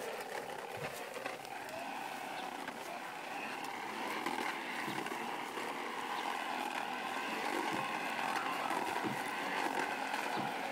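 Battery-powered motor of a Fisher-Price toy bubble mower running with a steady whirring hum as it is pushed over grass, a little louder from about four seconds in, with light clicks and rattles from its plastic wheels.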